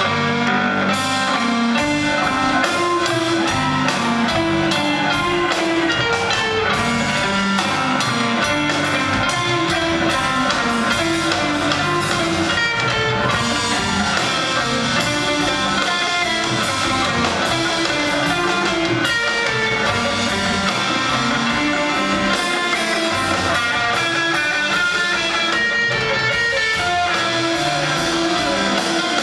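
A rock band playing live: electric guitars over a steady drum kit beat in an instrumental jam.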